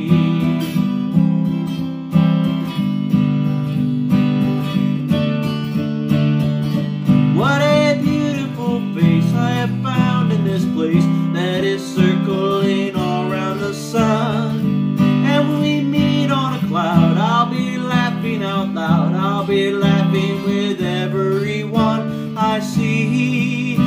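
Acoustic guitar strumming chords steadily. From about seven seconds in, a wordless vocal melody slides and bends over it.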